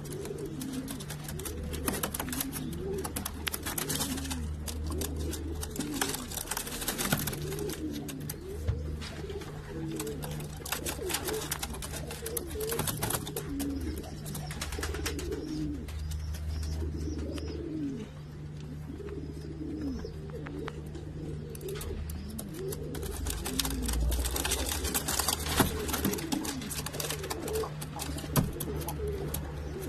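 A group of domestic fancy pigeons cooing, with many short rising-and-falling coos overlapping one another all through, over a steady low hum.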